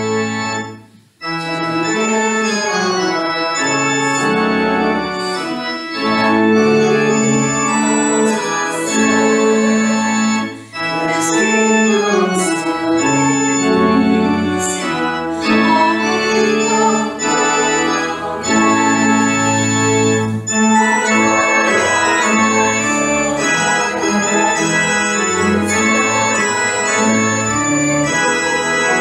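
Organ music: held chords that change every second or so, with a short break about a second in and a brief dip near ten seconds.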